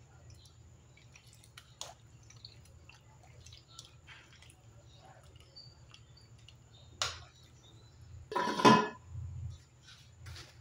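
Small ladle clinks in a stainless steel pot of simmering soup over a low steady hum, then a sharp tap about seven seconds in and a louder clatter a second later as the glass lid is set on the pot.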